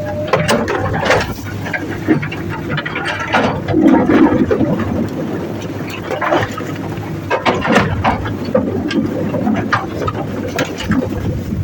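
Komatsu PC200-8 hydraulic excavator's diesel engine running steadily under load, with repeated knocks and clacks of rock against the steel bucket as it digs. There is a louder surge about four seconds in.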